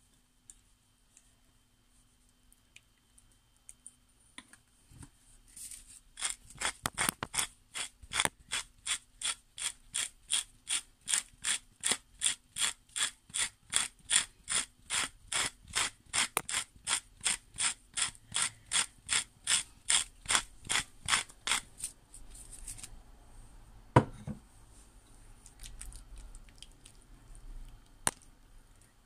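A hand-twisted spice mill grinding salt and chili: a long run of even ratcheting clicks, about two to three a second, for some fifteen seconds. A single sharp knock follows shortly after it stops.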